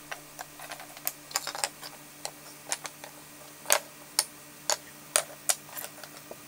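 Small wooden utensil pieces being set down and shuffled on a plywood benchtop: irregular light wooden clicks and taps, the sharpest a little under four seconds in and several more over the next two seconds, over a faint steady low hum.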